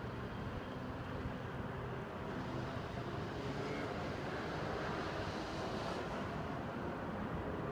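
Steady outdoor background noise: a low rumble with hiss above it, even throughout, with no distinct events.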